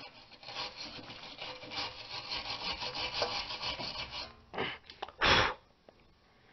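Wire brush scrubbing back and forth over a steel suspension bolt's threads in quick rasping strokes, several a second, stopping about four seconds in. A couple of short, louder scrapes follow.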